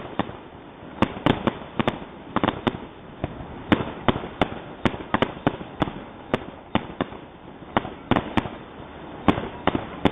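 Fireworks grand finale: shells bursting in a rapid, irregular volley of sharp bangs, several a second and often in quick clusters.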